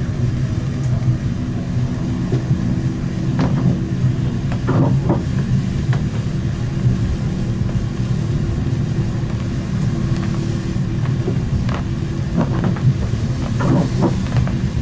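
Siemens Avenio tram running along the line: a steady rumble of wheels on rail with the hum of its electric traction drive. Several short squeaks or clicks come through, a few about four to five seconds in and more near the end.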